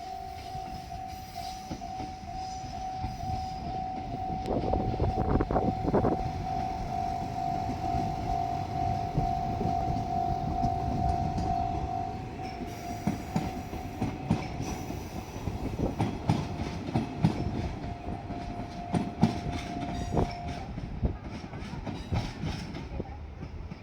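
Japanese railway level-crossing warning bell ringing with a steady tone while a diesel train passes with a loud engine rumble. Wheels clack over the rail joints, more and more in the second half, and the bell stops about 20 seconds in.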